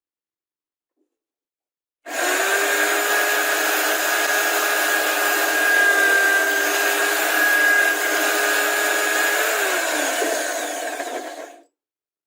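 An electric power tool running steadily with a constant motor whine over a rough hiss; near the end its lower tone drops in pitch as if briefly loaded, then the sound cuts off abruptly.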